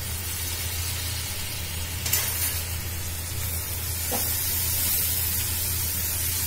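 Chopped onion, capsicum and green chillies sizzling in hot oil in a frying pan, stirred with a silicone spatula. About two seconds in, a spoonful of soy sauce goes into the hot pan and the sizzle grows louder. A steady low hum runs underneath.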